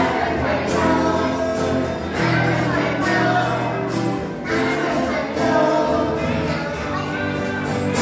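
Live pop song: voices singing into microphones over an acoustic guitar and keyboard, amplified through PA speakers.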